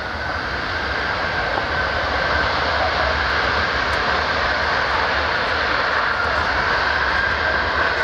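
Boeing C-17A Globemaster III's Pratt & Whitney F117 turbofans running as it taxis past at close range: a steady jet rush with a high whine, growing louder over the first couple of seconds and then holding steady.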